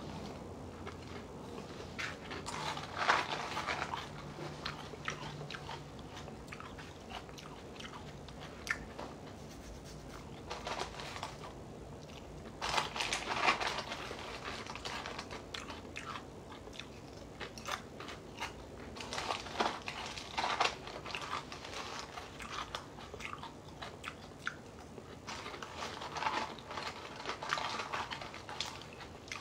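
A person chewing mouthfuls of Lucky Charms cereal, crunching, with louder bouts of crunching every several seconds.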